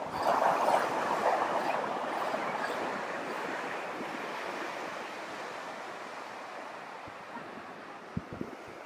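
Surf breaking and washing up a sandy beach, a steady rush of waves that slowly fades, with two brief low thumps near the end.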